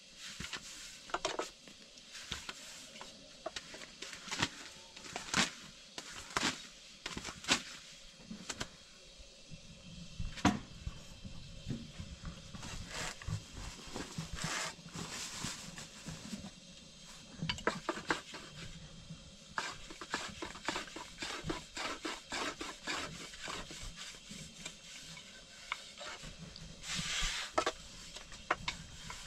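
Long thin wooden rolling pin rolling flatbread dough on a round wooden board: irregular wooden clicks and knocks as the pin turns and taps against the board, with rubbing between them.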